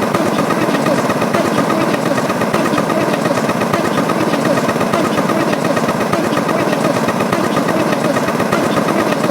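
A loud, steady, dense jumble of many overlapping short sound effects layered on top of each other, with no single sound standing out.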